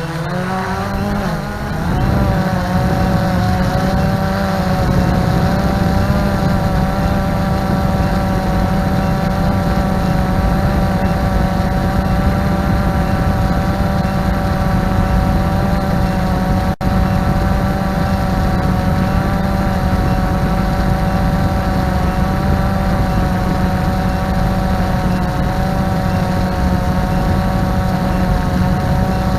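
Drone's electric motors and propellers whining, rising in pitch over the first couple of seconds and then holding a steady, slightly wavering pitch, with a momentary dropout a little past halfway.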